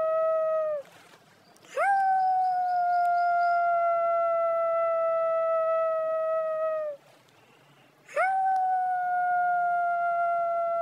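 Long howling cries, each swooping sharply up at the start and then holding one steady pitch for about five seconds. One cry ends about a second in, another fills the middle, and a third begins a little past eight seconds, with a pause of about a second between each.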